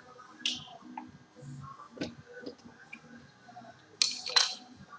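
Scattered sharp clicks and clinks of tools and engine parts being handled, with two louder ones in quick succession near the end.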